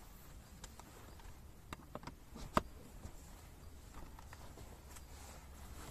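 Short clicks and knocks from the frame of a Captain Stag folding floor chair being handled and fitted together, with the loudest sharp knock about two and a half seconds in.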